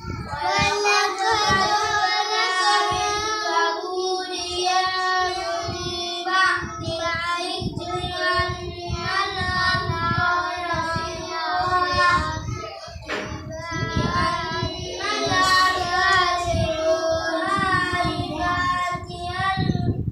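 A boy's voice reciting the Quran in melodic qirat style, in long held notes that bend and ornament, with short pauses for breath.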